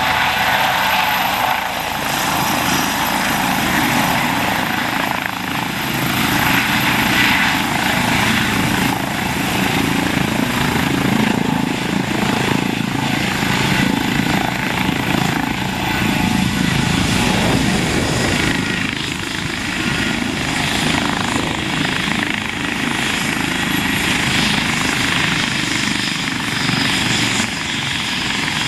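Eurocopter EC135 P2 twin-turbine helicopter hovering low and settling onto its pad, then running on the ground with the main rotor turning. Its rotor and turbine noise is loud and steady throughout.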